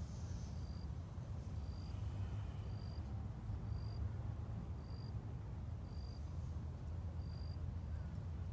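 An insect's short high chirp, repeated evenly about once a second, over a low steady rumble of wind on the microphone; the chirping stops near the end.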